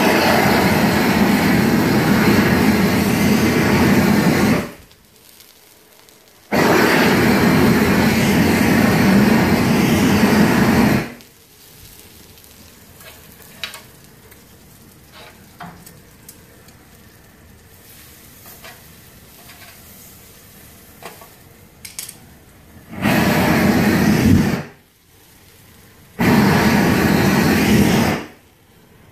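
Propane torch on full flame, a loud steady rush, in four stretches: about four seconds at the start, four and a half more after a short gap, then two short bursts near the end. In the long middle stretch the torch is turned low and only a faint hiss with scattered crackles is left as the roast's fat sears.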